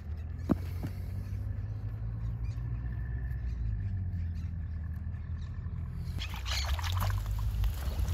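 A metal digging blade knocks once in dry soil, over a steady low outdoor rumble. About six seconds in, dry plant stems crackle and rustle as they are handled.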